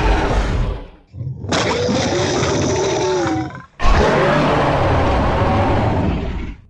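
Dinosaur roar sound effects for a Giganotosaurus: three long roars back to back with wavering pitch and a heavy low rumble. The first cuts out about a second in, the second is brighter and hissier, and the third runs to the end.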